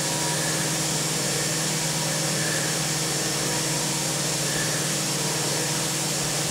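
CNC milling machine spindle running as a small end mill cuts slots in a mold plate: a steady machine hum with a constant hiss over it.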